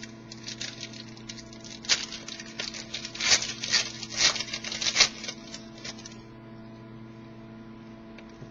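Trading cards being handled: quick clicking and rustling of card stock, busiest in the middle and dying away after about six seconds, over a steady electrical hum.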